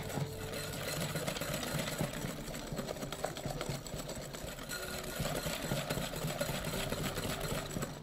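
Wire balloon whisk beating a thick cocoa and egg-yolk paste in a glass bowl: fast, steady scraping and clicking of the wires against the glass.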